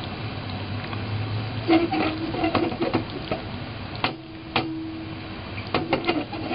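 Aluminium saucepan of cashews in stock clinking and scraping against a gas stove's grate as it is moved about, a run of sharp metallic knocks starting about two seconds in, over a steady hiss.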